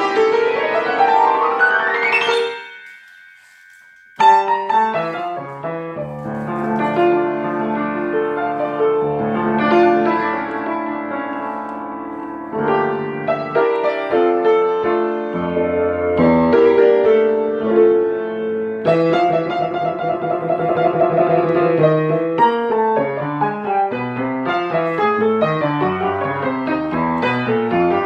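Solo piano music: a fast rising run of notes, a short pause of about a second and a half, then the piano playing resumes with chords and melody.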